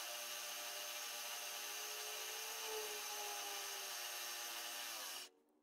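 Milling machine spindle running steadily, a whine made of many steady tones that wavers slightly in pitch midway, then cuts off abruptly near the end.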